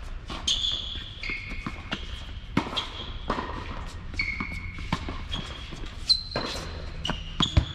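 Doubles tennis rally on an indoor hard court: racket strikes and ball bounces, with sneakers squeaking sharply on the court surface between them.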